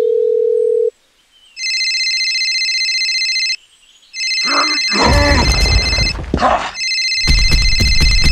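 A steady dial tone ends about a second in. Then a telephone ringtone sounds in three long bursts of about two seconds each, with short gaps between. A loud noise with a deep low rumble, carrying some voice-like sounds, overlaps the second and third rings.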